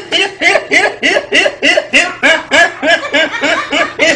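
A person laughing in a long, even run of 'ha-ha' pulses, about three a second.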